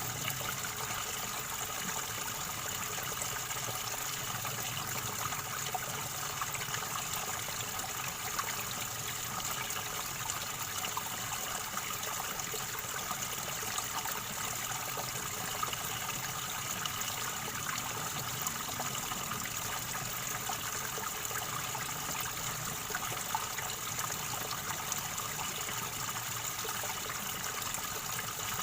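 River water gurgling and trickling steadily over stones.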